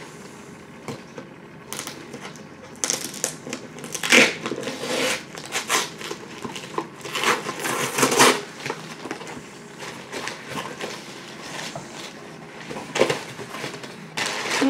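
A heavily taped cardboard parcel being torn open by hand: ripping of packing tape and crackling, crinkling paper and cardboard in irregular bursts. The bursts are busiest in the first half, then thin out, with one more burst near the end.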